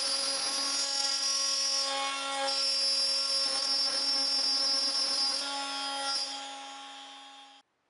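Trim router in a router table running with its bit cutting a kerf through the MDF base of a spline jig as the jig is pushed across: a steady high whine with rough cutting noise on top. It fades over the last couple of seconds, then cuts off abruptly.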